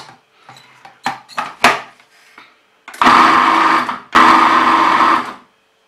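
Food processor pulsed twice, each burst a little over a second, its motor running as the blade chops a thick mixture of cooked lentils, kidney beans and onion into a coarse paste. A couple of sharp knocks come before the pulses.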